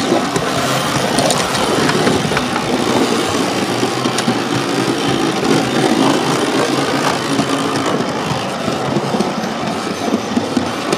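A model train running along its track, heard from on board: a steady rumble of wheels and motor with a few sharp clicks, typical of wheels passing over rail joints.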